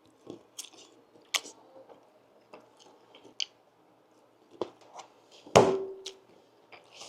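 Close-up biting and chewing of crispy hot-honey-coated fried chicken tenders: irregular crunches and mouth sounds, with the loudest crunch about five and a half seconds in.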